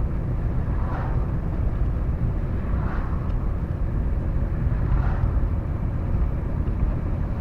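Car driving, with a steady low rumble of road and engine noise heard inside the cabin and a faint swish about every two seconds.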